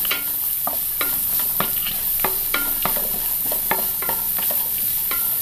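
Wooden spatula stirring and scraping sliced shallots, chillies and curry leaves around a nonstick pan, about two strokes a second, over a steady sizzle of hot coconut oil as turmeric powder fries in it.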